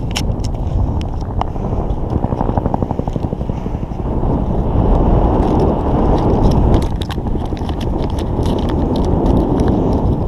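Wind buffeting the microphone high up a sailboat mast, a steady rumble, with scattered clicks and rustles from hands wrapping tape around the jib furler fitting.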